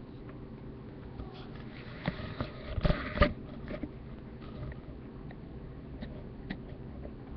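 A sleeping cat snoring: one short, noisy snore with a couple of sharp clicks in it about two to three seconds in, over a steady low hum.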